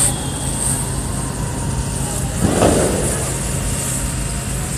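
Steady low engine rumble, with a brief rushing burst of noise about two and a half seconds in.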